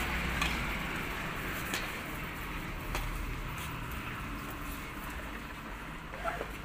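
A cow eating chopped green fodder and grain from a basket, with scattered soft crunching clicks, over a steady low rumble.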